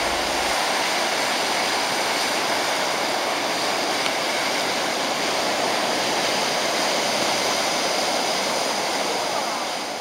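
Ocean surf breaking over a rocky shore: a steady rush of churning white water.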